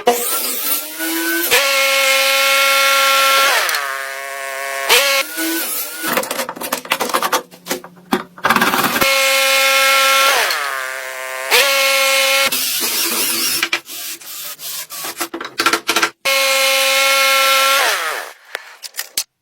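Woodworking power tool motor running at a steady pitch in three spells of about two seconds, its pitch sliding and recovering after each one. Between the spells there is noisy scraping and rubbing with sharp knocks, as of wood being cut or worked.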